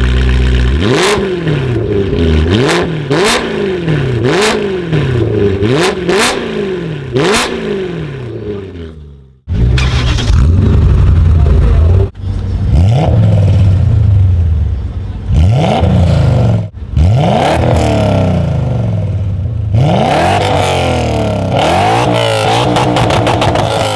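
BMW V8 engine revved repeatedly from a standstill, the pitch rising and falling in quick blips. About nine seconds in the sound cuts off briefly, and the revving resumes over a deeper, steadier engine note.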